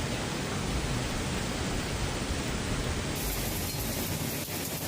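Floodwater rushing down a street, a steady roaring noise; the sound changes character about three seconds in.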